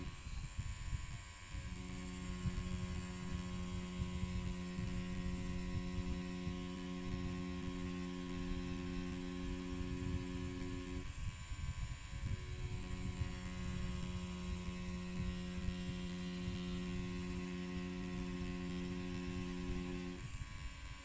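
Pen-style rotary tattoo machine running with a steady hum while its needle lines an outline on synthetic practice skin. The hum drops out briefly three times.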